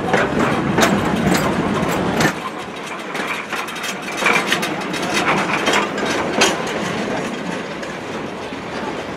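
Wooden railway passenger carriages rolling slowly past close by, their wheels clicking and knocking irregularly over the rail joints. A low rumble underneath drops away about two seconds in.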